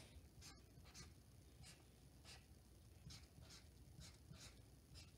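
Faint strokes of a felt-tip marker drawing lines on sketchbook paper, short scratchy strokes about one or two a second.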